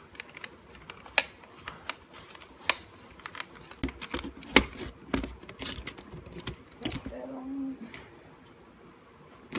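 Irregular sharp clicks and taps of hard plastic and metal parts being handled as an instrument cluster is put back together, the loudest click about halfway through.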